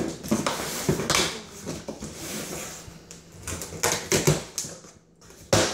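A knife slitting packing tape on a cardboard box, with repeated scratchy scraping strokes and cardboard flaps rustling and knocking. Sharper loud hits come about four seconds in and again near the end.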